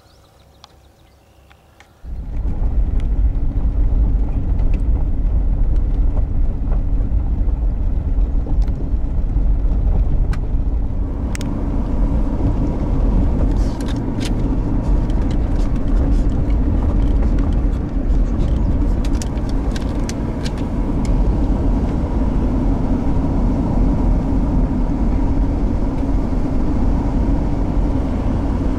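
Car on the move: steady road and engine rumble, heavy in the low end, cutting in suddenly about two seconds in, with a few faint ticks and clicks along the way.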